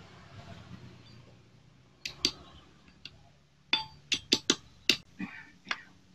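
Sharp metallic clicks and taps of a long steel rod against steel engine parts in a motorcycle crankcase while the oil pump's driven gear is fitted: two about two seconds in, then a quick run of about eight more near the end.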